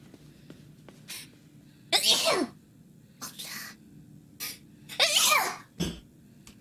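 A woman sneezes twice, about three seconds apart, each sneeze with a short sharp intake of breath before it and a squeaky voice falling in pitch. The second sneeze comes with no air left in her, by her own account. A short low sound follows it.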